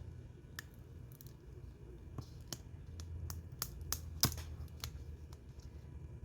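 Small tools and phone parts clicking and tapping as a phone is taken apart by hand: a string of irregular light clicks, the loudest about four seconds in.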